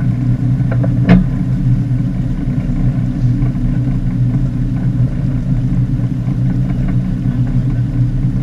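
Fishing boat's engine running steadily with a low hum, and a single sharp knock about a second in.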